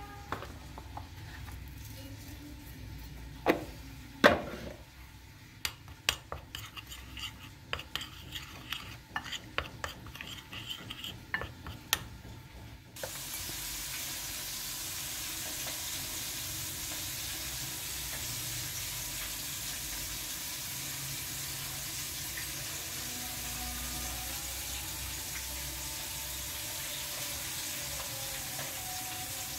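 A spoon stirs and clinks against a ceramic bowl of cornflour, a run of sharp taps and scrapes. About 13 seconds in, this gives way suddenly to the steady sizzling hiss of hot frying oil.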